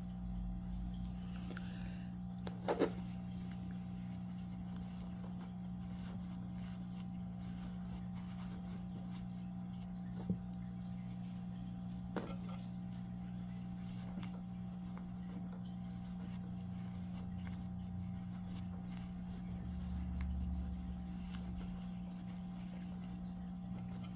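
A steady low hum runs under soft handling noises and a few light clicks, from polyester fiberfill being stuffed into a crocheted piece.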